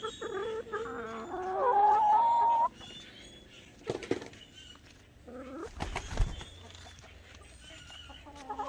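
A flock of hens clucking and calling as they peck, with one loud, drawn-out call that rises and then holds, about one to three seconds in. A dull thump comes about six seconds in, and the clucking picks up again near the end.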